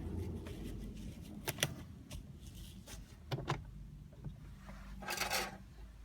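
A few sharp clicks and a brief scrape or rustle near the end, over a low rumble: small objects being handled.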